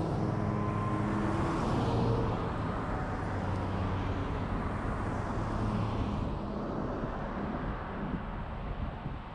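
Road traffic passing by: car engines and tyre noise swell and fade twice, over a steady low hum.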